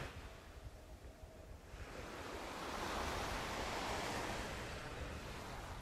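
Sea waves washing onto a beach, a steady surf wash that swells about two seconds in.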